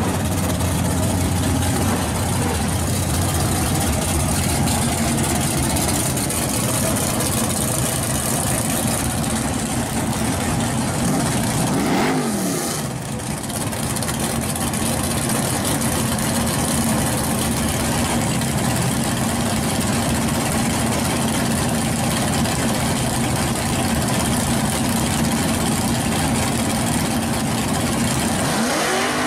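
Loud drag-car engines idling and revving at a drag strip, mainly a Chevrolet Monte Carlo SS. The engine pitch dips and climbs again about twelve seconds in, and rises sharply near the end.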